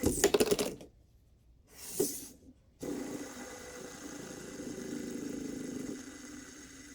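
A fidget spinner spinning, starting with a quick rapid rattle. The sound cuts out for about two seconds, broken by one brief burst, then becomes a steady whirr.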